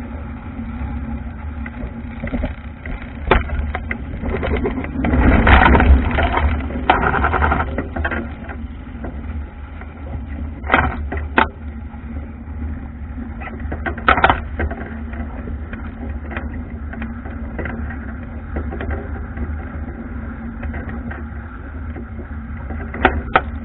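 Wind buffeting the onboard camera's microphone and water rushing and splashing along an Albacore dinghy's wooden hull in choppy water, with a loud deep rumble throughout. Scattered sharp knocks, and a louder rush of noise about five to eight seconds in.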